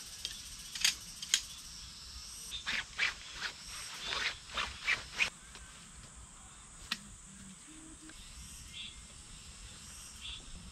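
Poles of a folding camp cot clicking and clacking together as it is assembled: a quick run of sharp clicks in the first five seconds and one more about seven seconds in. Cicadas buzz steadily behind.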